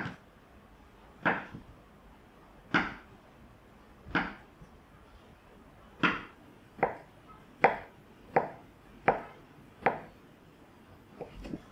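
Kitchen knife cutting through ham onto a wooden cutting board: about ten sharp knocks of the blade on the board, spaced out at first and coming quicker from about halfway.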